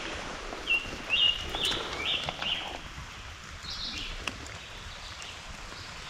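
A bird calling in short, high, repeated notes, about five in quick succession and then two higher ones, over a steady background hiss of rain with a few sharp ticks.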